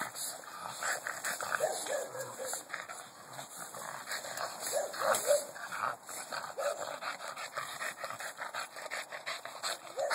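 Boston terriers playing over a beach ball in a shrub, giving short whimpers and yips now and then over a busy crackle of rustling leaves and branches.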